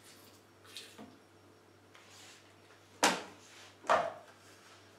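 Cooking liquid poured faintly from a plastic measuring jug into the steel bowl of a Krups Prep & Cook food processor, then two sharp clunks about a second apart as kitchen things are handled at the counter.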